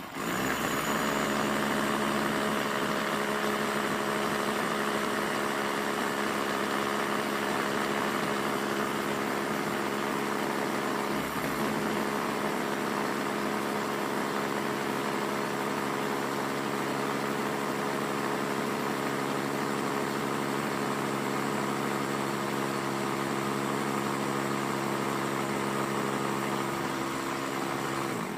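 Electric rotary hammer drill running steadily as it bores a long hole through a brick, cutting off at the end.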